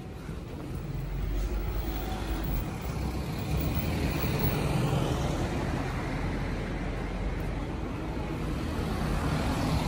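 Road traffic: a passing vehicle's engine and tyre noise swells to its loudest about four to five seconds in, over a steady hum of city traffic.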